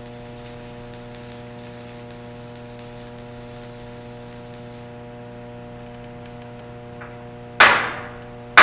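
Stick-welding arc on a J422 rod, a faint crackling hiss with a lot of popping, cutting off about five seconds in over a steady electrical hum. Near the end, a loud sharp metallic strike that rings and fades: a chipping hammer knocking slag off the weld bead.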